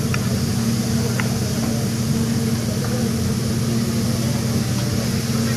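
Steady low mechanical hum, most likely a kitchen ventilation fan, with a faint hiss above it and a few light taps.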